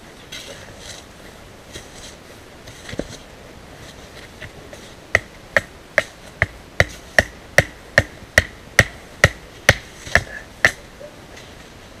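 A run of about fourteen sharp strikes, a little over two a second and each with a brief ringing note, starts about five seconds in. It is preceded by a few scattered softer knocks.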